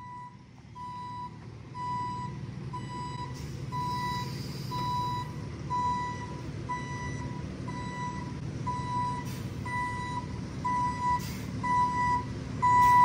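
Box truck reversing: its backup alarm beeps steadily, a little under two beeps a second, over the low rumble of the engine, growing louder as the truck comes closer.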